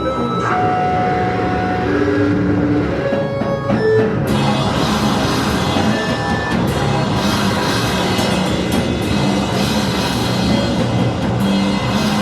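Live rock band: a few seconds of held single notes, then the full band crashes in about four seconds in, with drums, cymbals and distorted guitars playing loud and dense.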